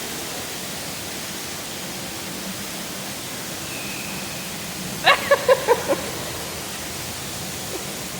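Steady rushing water noise from a rainforest exhibit's waterfall. A little past the middle comes a quick run of five short, loud pitched calls, and a faint thin whistle sounds shortly before them.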